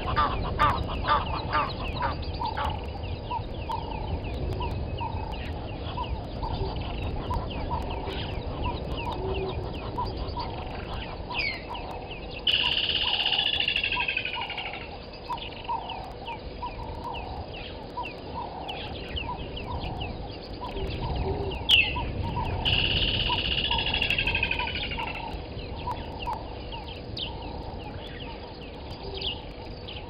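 Wild birds calling around a waterhole: loud calls in the first couple of seconds, then many short chirps and repeated notes, with two longer calls that fall in pitch about halfway and two-thirds of the way through.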